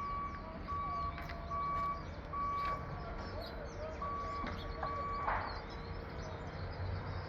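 Backup alarm of a reversing construction vehicle: repeated single-pitch beeps over a low engine rumble, stopping about five seconds in.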